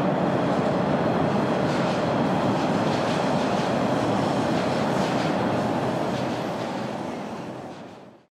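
Steady rushing noise with no distinct events, fading out near the end.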